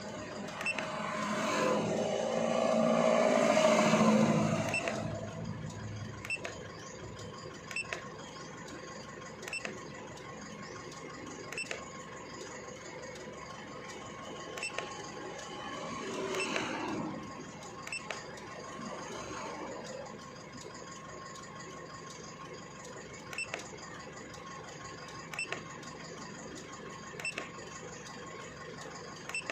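Isuzu Alterra engine running at idle, swelling louder for a few seconds at the start, with a short sharp click about every two seconds.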